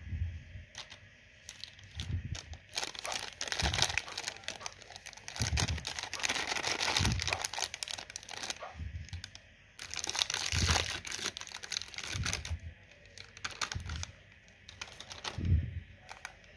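Plastic jelly-candy packets crinkling in gloved hands in long bursts, with a packet being torn open. Soft low bumps come from the packets being handled and set down.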